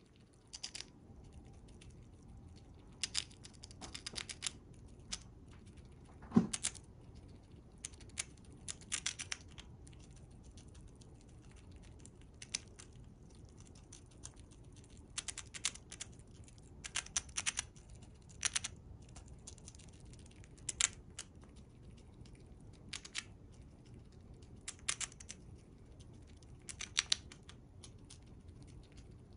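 Chipmunk nibbling and chewing a chunk of food held in its paws: small, crisp, high-pitched clicks of its teeth in irregular clusters every second or two, with one louder knock about six seconds in.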